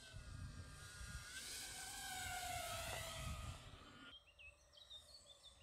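Eachine Wizard X220 quadcopter's brushless motors whining faintly, the pitch sliding up and down with the throttle, over a low rumble. About four seconds in the rumble drops away and a few bird chirps are heard.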